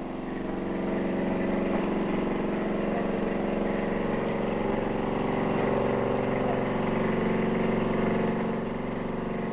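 Crawler bulldozer's diesel engine running with a steady, even drone. The sound builds over the first second, then holds steady.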